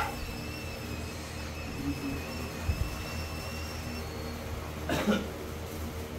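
Steady low room hum, with a faint thud about three seconds in and one short clack of pool balls striking about five seconds in.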